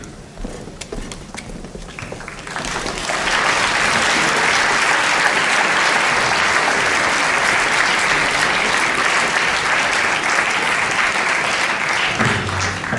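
Audience applauding: a few scattered claps at first, swelling into full, steady applause about two and a half seconds in, which dies away near the end as the first low instrument notes sound.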